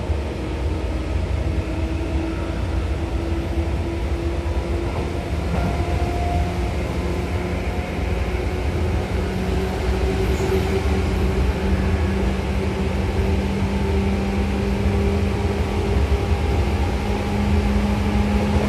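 Seibu 2000 series electric train running, heard from inside the car: a steady low rumble with a motor hum that slowly rises in pitch as the train gathers speed.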